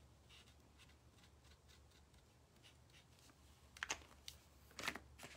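Faint light scratching of a paint-pen tip on wood, then two sharp plastic clicks about a second apart near the end as a paint marker's cap is snapped off and on while pens are swapped.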